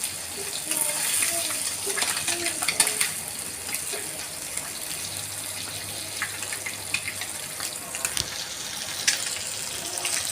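Fish frying in hot oil in a pan: a steady sizzle with scattered crackles and pops.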